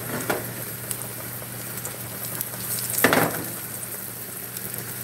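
Breaded steak frying in hot oil in a skillet, a steady sizzle, with a short louder rush of noise about three seconds in.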